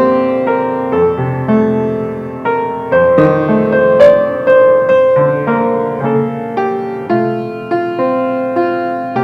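Piano playing a slow, gentle piece, with notes and chords struck about twice a second, each ringing on and fading away.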